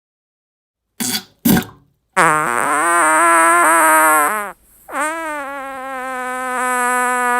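Human farts: two short blasts about a second in, then a long fart with a wavering tone, a brief break, and another long, steadier tone-like fart that carries on.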